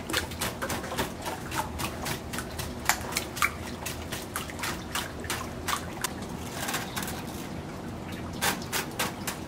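Wire whisk beating a big bowl of raw eggs: the wires click against the bowl in a steady rhythm, about two to three times a second, with the liquid egg sloshing. The clicking thins out briefly past the middle, then picks up again near the end.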